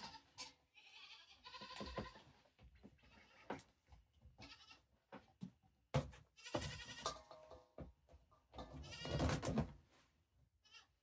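A goat bleating several times, the last call the loudest, with a few light knocks and clatters between the calls.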